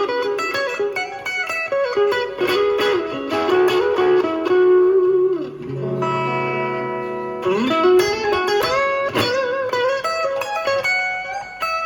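Electric guitar played through a Fender Champion 20 practice amplifier: quick single-note lead phrases with slides into notes, and a chord left ringing for about a second and a half just after the middle before the lead lines resume.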